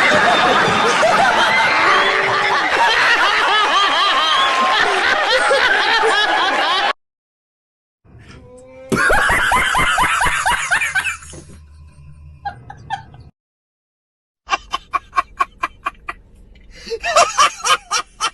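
A string of laughing sound-effect clips: first several voices laughing together for about seven seconds, then after a short break a second burst of laughter that tails off, then a rapid staccato laugh of short, evenly spaced pulses, about four or five a second.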